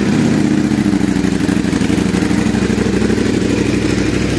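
Ducati Panigale V4S's 1103 cc V4 engine idling steadily through a full-system titanium Akrapovič exhaust. The idle is loud, with no revving.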